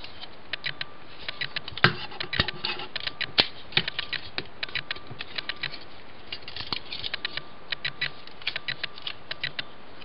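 Small hard-plastic clicks and knocks from a Transformers Generations Blitzwing action figure's joints and parts being rotated and folded by hand: rapid, irregular clicking throughout, with one sharper knock about two seconds in.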